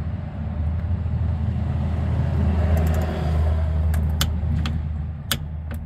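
Steady low vehicle rumble that swells for a couple of seconds in the middle. Over it come a few sharp metallic clicks, about four and five seconds in, from a click-type torque wrench tightening the brake caliper bolts with a 14 mm socket.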